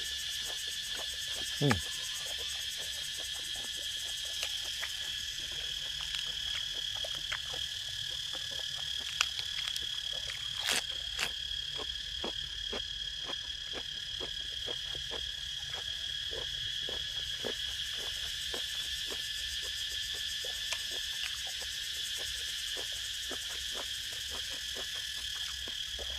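A steady, high-pitched chorus of insects runs throughout. Many short clicks and crunches of someone chewing and eating sound over it.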